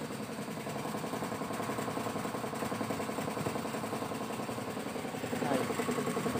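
Honda Vario scooter's engine idling steadily, with an even, fast pulse.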